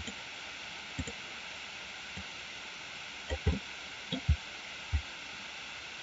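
A computer mouse clicked about eight times at an uneven pace, each click a short soft thump, over the steady hiss of the microphone.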